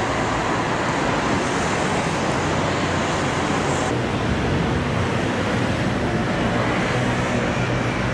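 City street ambience: steady road traffic noise.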